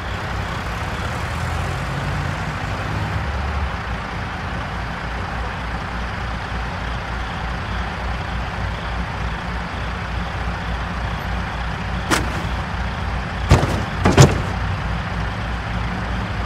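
A truck engine running steadily with an even low throb. Three sharp knocks come in quick succession about three-quarters of the way through, the last two loudest.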